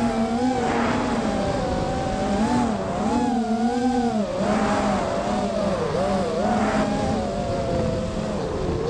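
FPV racing quadcopter's brushless motors and propellers whining. The pitch rises and falls in waves as the throttle changes, with several tones sounding together over a rushing noise.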